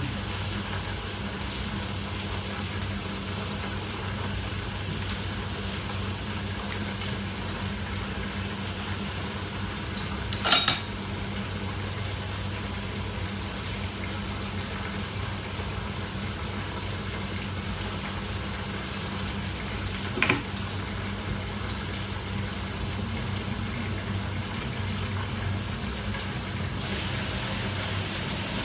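Food cooking on the stove with a steady hum and hiss, broken by two sharp clinks of a utensil against cookware: the louder about ten seconds in, a weaker one about twenty seconds in.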